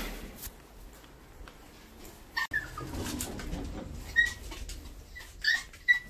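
Dog whining in short, high-pitched whines, more and more often in the second half, the sound of a dog excited to be going out.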